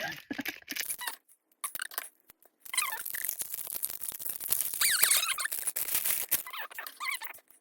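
Wrapping on small stationery pieces rustling and crinkling as it is handled and opened, with several high, wavering squeaks.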